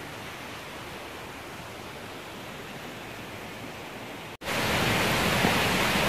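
A faint, steady hiss, then about four seconds in a sudden jump to the much louder, steady rush of a waterfall close by.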